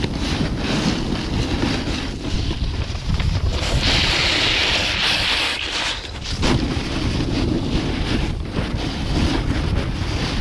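Wind buffeting the microphone as a snowboard slides down a groomed run, its edge scraping and hissing on the snow. A louder hiss of a carved turn comes about four seconds in and lasts about two seconds.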